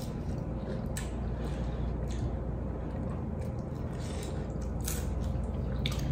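Quiet eating sounds over a steady low hum: a few soft clicks and slurps as a hot drink is sipped from a spoon and a snack is nibbled.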